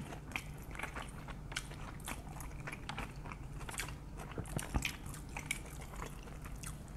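Two people chewing and biting into fried birria tacos, the tortillas crisped in the stew's consommé: scattered soft crunches and wet mouth clicks.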